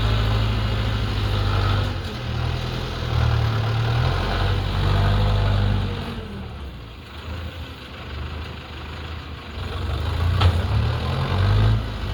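Backhoe loader's diesel engine running, its note rising and falling as it works: loud for the first half, easing off about six seconds in, then picking up again. A single sharp knock about ten and a half seconds in.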